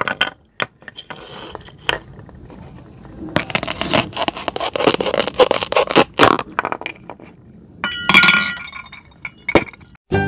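Plastic toy knife scraping and tapping on a plastic cutting board as toy plastic vegetables are cut and pulled apart, with scattered clicks and a stretch of scraping. A short ringing metallic clink comes towards the end.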